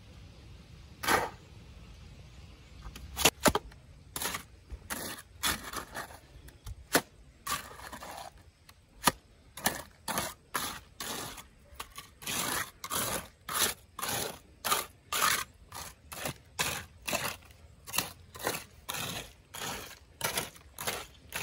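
A run of short, sharp scraping sounds at an uneven pace: a few scattered ones at first, then about two a second from about ten seconds in.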